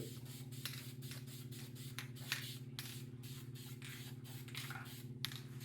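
Workshop exhaust fan running with a steady hum, with a few faint, brief hisses and ticks over it.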